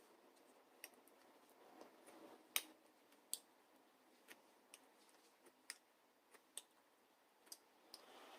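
Faint, irregularly spaced small clicks and taps, about a dozen, over near silence; the sharpest comes about two and a half seconds in, just after a soft rustle.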